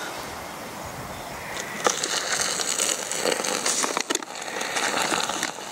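Camping gear rustling, with scattered small clicks and knocks, as it is handled and packed. The rustling gets busier about two seconds in.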